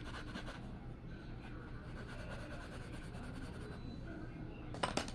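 Faint scratching of a drawing tool working across paper, over a low steady hum. A couple of sharp taps come near the end.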